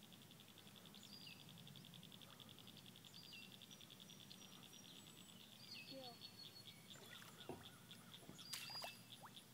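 Quiet outdoor ambience at a pond: a faint, rapid, high-pitched ticking trill runs on and slows to a looser ticking after about seven seconds, with a few short bird chirps. A couple of sharp clicks come near the end.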